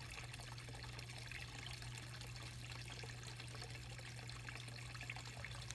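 Water trickling steadily, with a low steady hum underneath.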